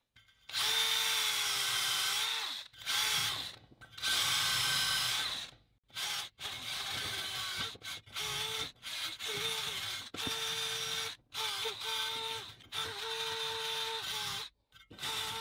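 DeWalt 20V cordless drill spinning a small stripping bit against a rusty steel wheel, taking paint and rust off around the lug-nut holes. It runs in repeated trigger bursts, a couple of seconds each at first and then shorter and more frequent.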